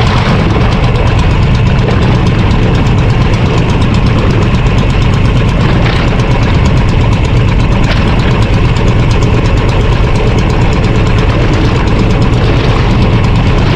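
Engine of a Philippine fishing boat (bangka) running steadily and loudly, heard close up, with an even, heavy low rumble.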